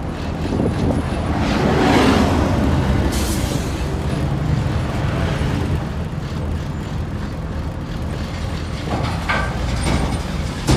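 Heavy road vehicles running and passing by with a steady low engine rumble. One swells up about two seconds in, and there is a brief hiss about three seconds in.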